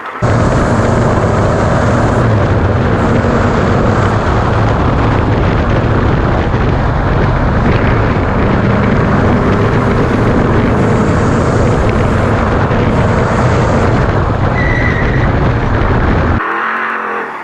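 Ford Ranger desert race truck at speed, its engine and road noise loud and steady from inside the cab. It cuts in abruptly at the start and cuts off abruptly about a second before the end.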